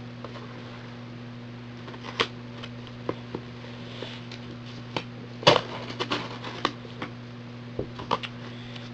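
Scattered clicks, knocks and rustles of a parcel being handled and opened, the loudest about five and a half seconds in, over a steady low hum.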